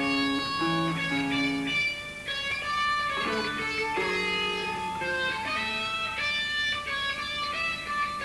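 Electric guitar playing a slow line of held single notes, each ringing for about half a second to a second.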